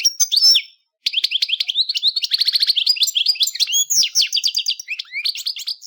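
European goldfinch singing: a fast, twittering song of quick chirps and trills, with a short break about a second in.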